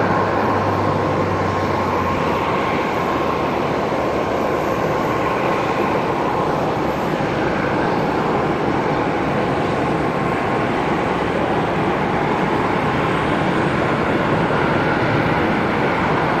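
Jet engine noise of an Airbus A330-223 with Pratt & Whitney PW4000-series turbofans as it touches down and rolls out along the runway: a steady, even roar, with a faint whine and a low hum at first.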